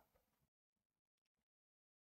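Near silence: a digitally clean pause with no sound.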